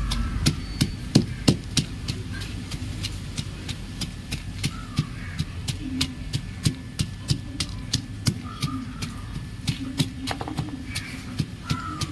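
Soda chalk being crumbled: sharp, crisp cracks and crunches, irregularly spaced, a few each second.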